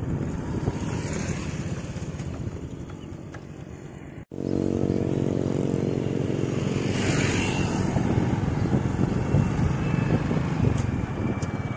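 Riding a motorcycle along a road: the engine running under a steady rumble of wind on the microphone. The sound drops out for an instant about four seconds in, and a swell of hiss comes a few seconds later.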